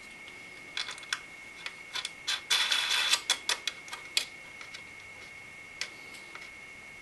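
Metal thumb screws being turned by hand to snug down CPU cooler retention brackets: a run of small clicks and ticks, with a short denser scrape about two and a half seconds in, dying away after about four seconds.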